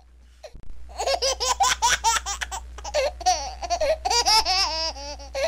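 A person laughing in a rapid string of high-pitched bursts, starting about half a second in, over a steady low hum.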